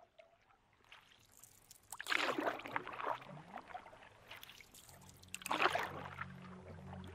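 Wood fire in a fireplace crackling with scattered sharp pops, broken by two loud rushes of noise about two seconds and five and a half seconds in. Music with low sustained notes fades in about five seconds in.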